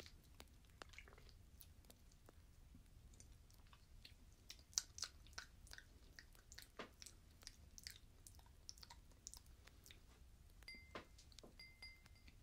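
Faint close-up sipping and swallowing from a glass: many small wet mouth clicks and gulps, with two short high pings near the end.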